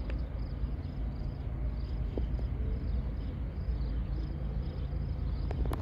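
Low steady rumble of a distant approaching BNSF diesel freight train, with insects chirping in a quick even rhythm over it. A sharp knock comes at the very end.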